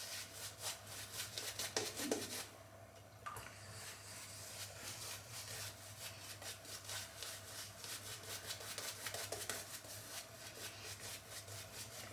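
Karve CB stainless safety razor (B plate, Polsilver Super Iridium blade) cutting through three days' stubble in short strokes, a rapid scratchy crackle, with a brief pause about two and a half seconds in.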